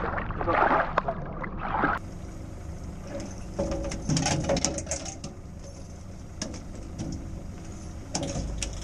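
A hooked cod thrashing and splashing at the water surface for about two seconds, cut off abruptly. After that comes a quieter low steady hum with scattered knocks and clicks.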